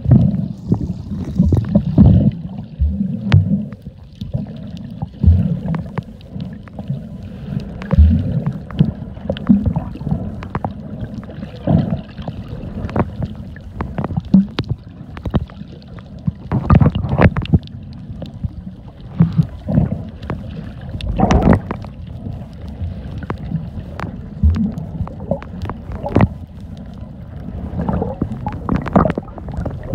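Muffled sea water sloshing and gurgling around the microphone, with uneven low rumbles and many sharp clicks and knocks.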